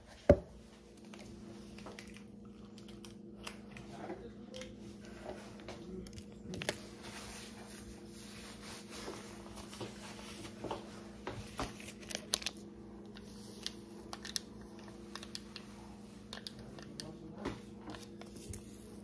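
Faint rustling, crinkling and small knocks of things being handled and packaging being moved about on a counter, with a loud knock just after the start, over a steady low hum.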